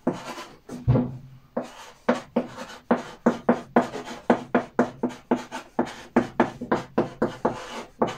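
Chalk writing on a blackboard: quick scratchy strokes and taps, about three a second, with a duller knock about a second in.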